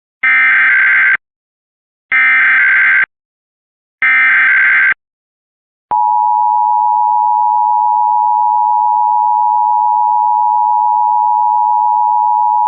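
Emergency Alert System test signal: three short bursts of SAME header data tones, each about a second long with a second's gap between them, then the steady two-tone attention signal starting about six seconds in and holding. The sequence marks the start of a required monthly EAS test.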